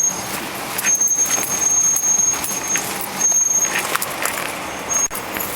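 A four-wheel-drive vehicle on a rough off-road trail: rattling and knocking as it bumps along, with a thin, high-pitched squeal that starts and stops several times.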